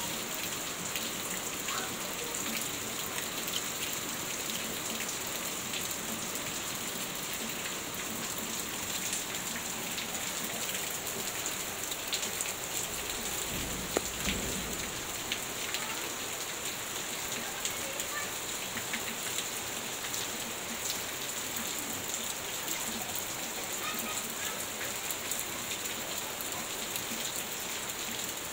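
Heavy rain falling steadily, a dense even hiss of rain on roofs and floodwater. A single dull thump about halfway through.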